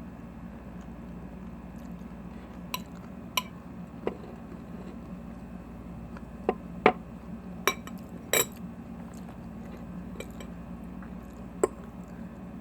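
A fork clinking against a salad bowl several times during eating, in short separate clicks, the loudest in the middle, over a steady low hum.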